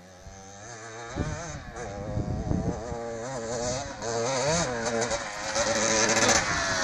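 Yamaha DT 125 R's two-stroke single-cylinder engine revving up and down as the bike rides closer, growing steadily louder. The bike is restricted at the CDI and, by the rider's account, makes no real power.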